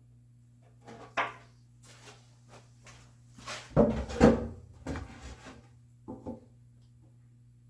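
Wood knocking and scraping as pieces and tools are handled on a workbench: a string of separate knocks, the loudest cluster about four seconds in.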